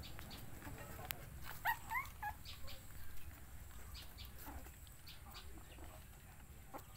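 A dog eating from a metal pot, making faint scattered clicks and chewing sounds, with a few short high-pitched animal calls about two seconds in.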